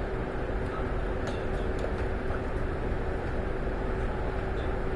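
Steady running noise of a Taiwan Railway EMU800 electric multiple unit heard from inside the carriage: an even rumble with a constant hum and a few faint clicks.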